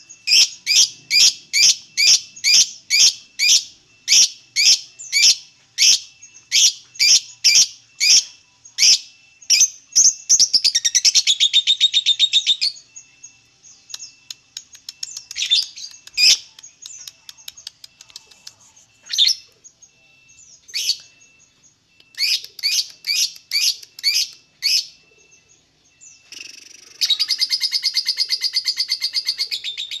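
Fischer's lovebird calling: a run of sharp, high chirps about two a second, breaking into a short rapid chattering trill about a third of the way in. Scattered chirps and a second short series follow, then a long, fast, unbroken chatter near the end, the kind of song keepers call ngekek.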